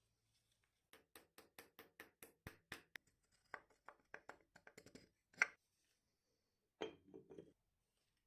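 Light metal clicks and taps as a steel chuck backplate is fitted and turned onto the threaded spindle nose of an old dividing head. They come as a fast, even run of about five clicks a second, then scattered clicks and one sharper clack about five seconds in, and a short clatter of metal near the end.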